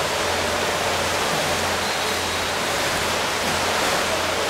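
Steady, even rushing noise of a pool during a water polo match, water and hall echo blended into one wash with no single event standing out.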